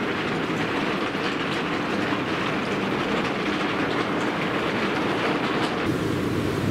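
Ore-grinding ball mill turning, a loud steady clatter of ore and grinding media tumbling inside the drum. About six seconds in it gives way to a duller, steadier churning from the slurry of the flotation cells.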